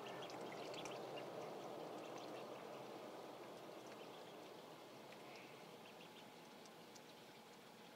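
Ancona ducklings dabbling and drinking at a shallow water dish: a faint, steady splashing and trickling of water that slowly fades, with scattered short high peeps.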